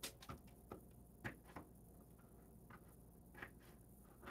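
Faint, scattered clicks and taps of a knife cutting potatoes on a plastic cutting board, at uneven intervals.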